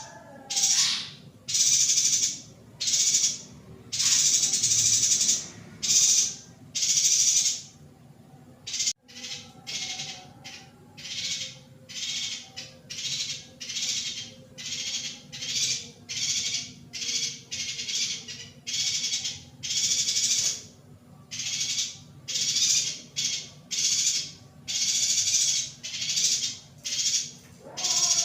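Female yuhina calling: buzzy, hissing notes repeated over and over, about one a second at first, then after a short break about nine seconds in, quicker at about two a second. These are female calls of the kind used to rouse male yuhinas into breeding condition.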